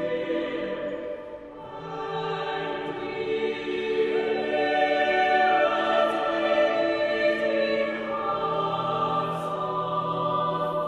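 A mixed choir singing slow, sustained chords, the harmony shifting to new chords about two, four and eight seconds in.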